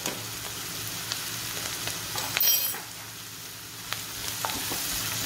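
Chopped onions and green chillies sizzling in oil in a frying pan while a wooden spatula stirs them, scraping and tapping the pan. A louder clatter comes about halfway through.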